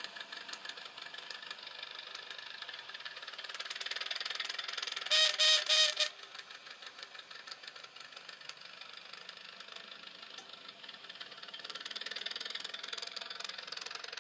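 A small rebuilt Simplex engine running on its first test, a fast, even mechanical clatter. About five seconds in, a loud pitched sound blares for about a second, pulsing as it goes.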